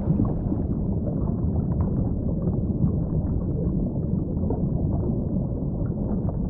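Low, muffled rumble of churning water with faint crackles, steady throughout.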